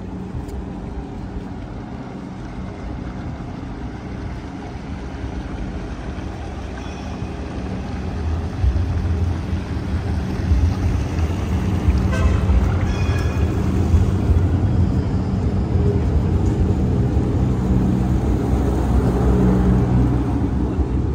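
Engine of a small passenger river boat running as it motors up the river toward and past the bridge: a low, steady hum that grows much louder about eight seconds in and stays loud.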